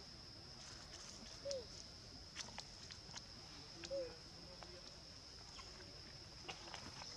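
Two short, arched calls from young long-tailed macaques, about two and a half seconds apart, over a steady high insect drone and a few faint rustling clicks.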